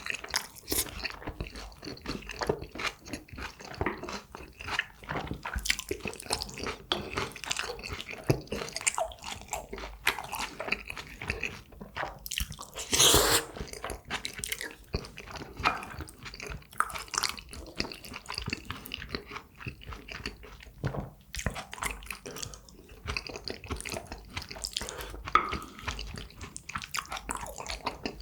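Close-miked chewing and crunching of a jjajangmyeon and tangsuyuk meal: irregular wet chewing and crackly bites throughout, with one louder, longer burst of eating noise about thirteen seconds in.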